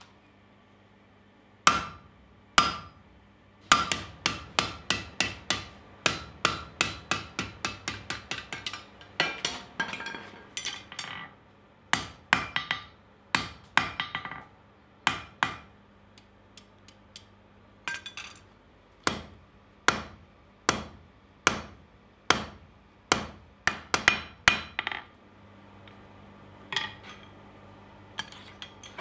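Blacksmith's hand hammer striking red-hot coil-spring steel on an anvil. The ringing blows come in runs of about three a second, broken by short pauses, with a few single blows at the start and near the end.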